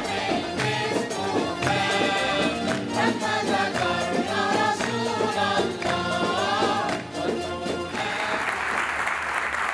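A women's choir singing an Islamic devotional song for the Prophet's Birthday with musical accompaniment and a beat. About eight seconds in the singing ends and applause takes over.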